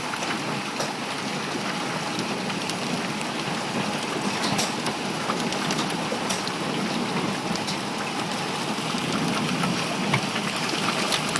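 Heavy rain and golf-ball-sized hail pouring down steadily, with scattered sharp cracks of hailstones striking hard surfaces.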